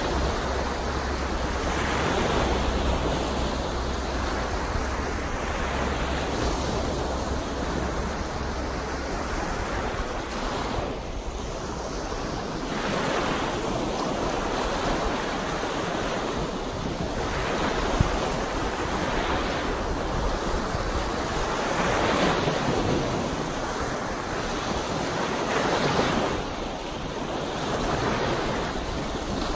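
Lake Superior surf: wind-driven waves breaking and washing onto the shore, the wash swelling and easing every few seconds.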